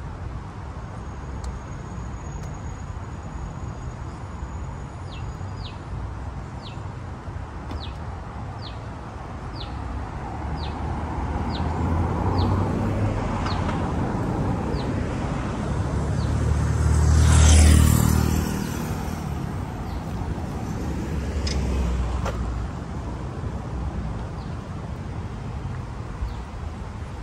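A car passing on the road, its tyre and engine noise swelling to a peak about two-thirds of the way through and then fading, with a smaller swell from another vehicle a few seconds later, over a steady low traffic hum. Through the first half a bird repeats a short falling chirp, about one and a half times a second.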